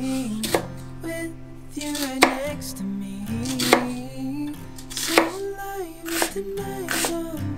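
Chef's knife slicing through an onion into a wooden cutting board: about six sharp knocks, one every second or so, over background music.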